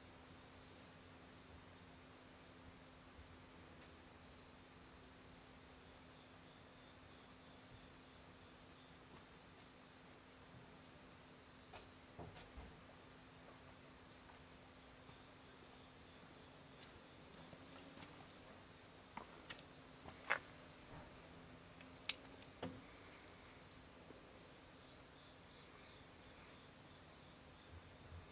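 Faint night insects singing: a pulsing chirp and a steady high trill, over a low hum. A couple of sharp clicks stand out about two-thirds of the way through.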